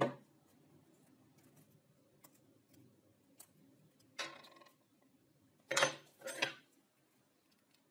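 Small steel parts handled on a laminate board: a sharp knock at the start, light metal clicks, a short rattle about four seconds in as a pin is worked out of a hex coupling nut, then two louder clatters around six seconds as the pin and a drill bit come down on the board.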